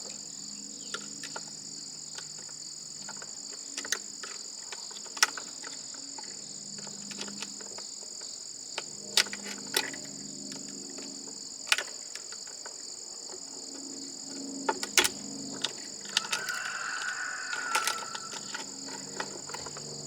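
Sharp, scattered clicks and knocks of hand tools and loose metal and plastic parts as a waffle maker is taken apart, over a steady background of crickets chirping. A short high whine comes in about sixteen seconds in.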